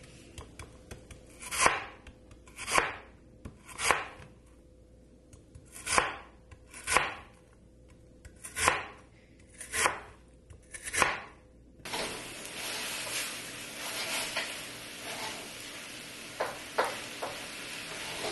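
Large chef's knife slicing through a firm white vegetable onto a plastic cutting board, eight slow cuts about a second apart, each ending with a knock on the board. About twelve seconds in this gives way to a steady hiss of food frying in a pan, with a few light utensil clicks.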